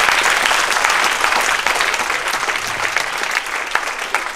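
Audience applauding, a dense patter of many hands clapping that gradually dies down.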